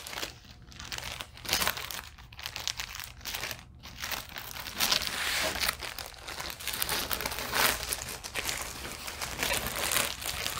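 Clear plastic sleeve crinkling and rustling in irregular bursts as a rolled diamond-painting canvas is slid back into it and handled.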